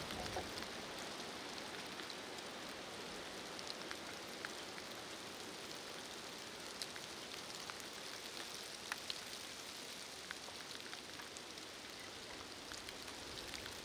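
Heavy rain falling: a faint, even hiss with scattered sharp ticks of single drops.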